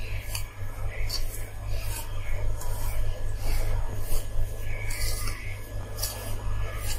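A hand rubbing and mixing oil into flour in a steel bowl: steady scratchy rubbing with short brushing strokes, over a low steady hum.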